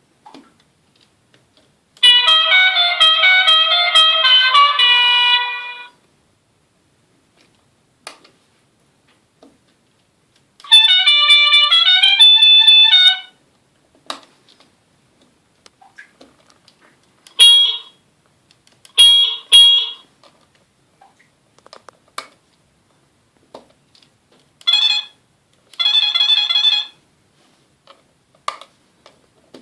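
Electronic RC horn unit playing a series of its horn sounds one after another: a four-second tune of stepping electronic tones, a shorter tune a few seconds later, then short single and paired honks, with faint clicks in the silent gaps between them.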